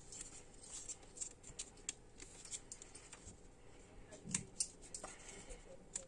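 Hands handling a DDR2 RAM stick over an open desktop PC case, making faint scattered clicks and light handling noise, with a somewhat louder click a little over four seconds in.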